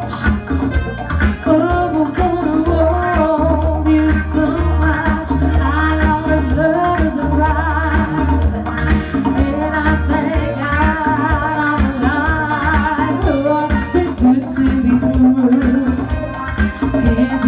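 Woman singing a song live into a microphone, backed by electric guitar and keyboard, with a steady bass line underneath.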